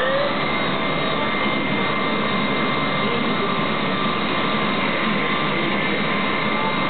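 Haas TL-3 CNC lathe spindle whine, rising to a steady high pitch just after the start and then running at constant speed with a steady machine hum. In the second half the tool cuts the spinning steel bar, throwing off stringy chips.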